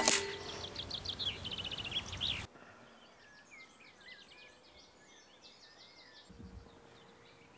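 A single sharp crack from a moderated Daystate Red Wolf air rifle firing, the loudest sound, right at the start. Songbirds sing throughout, much fainter after about two and a half seconds.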